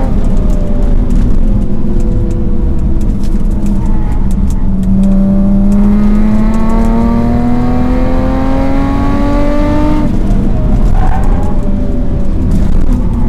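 Subaru EZ30 3.0-litre flat-six engine with aftermarket headers and exhaust, heard from inside the cabin under hard track driving. It climbs steadily in revs for about five seconds under full throttle, then drops sharply about ten seconds in as the throttle comes off and settles lower.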